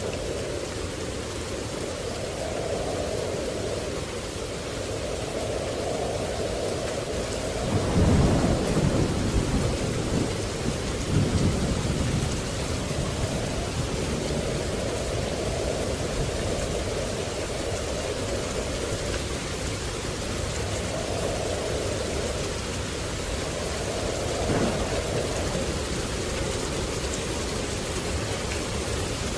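Steady rain with thunder rumbling. The thunder swells in two loud rolls about a third of the way in, with a shorter clap near the end.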